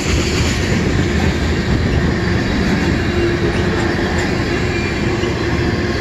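Freight train of tank cars rolling past fast: a steady rumble and rattle of steel wheels on the rails, with a faint steady whine in the middle of the passage.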